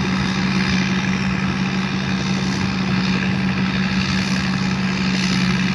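Tamco S9000 combine harvester running steadily, its Isuzu 6HK1 six-cylinder diesel engine holding an even hum with the machine's steady mechanical noise over it.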